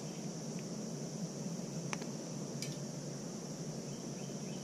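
Steady high-pitched insect buzz in the background, with two faint clicks of a hand wire stripper about two seconds in, less than a second apart.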